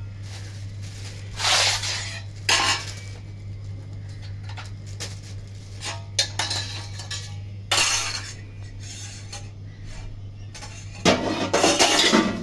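Metal dishes and utensils clattering and clinking in several short bursts, with the longest and loudest near the end, over a steady low hum.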